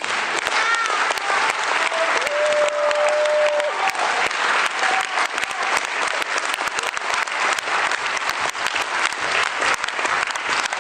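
Theatre audience applauding as a musical number ends, the clapping growing denser in the second half.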